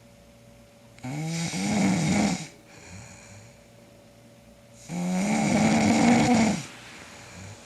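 A man snoring loudly: two long snores about four seconds apart, each followed by a quieter breath.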